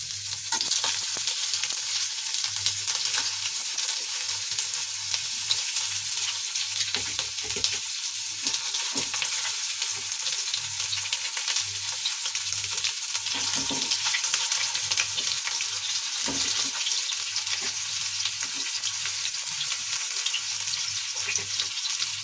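Stuffed bitter gourds sizzling in hot oil in a frying pan, with scattered crackles as they are laid into the pan one by one.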